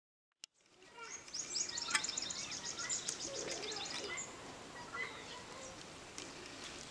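Outdoor ambience with birds chirping, fading in after a short click. A quick trill of high, rapidly repeated notes runs for a couple of seconds and stops about four seconds in, followed by scattered chirps.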